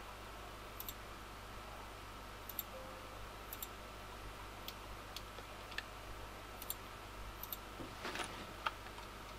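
Computer mouse buttons clicking every second or so, some clicks in quick pairs, over a faint steady hum. There is a short rustle near the end.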